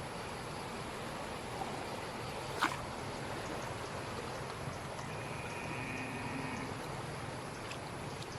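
Steady rushing of flowing floodwater, with one sharp click about two and a half seconds in.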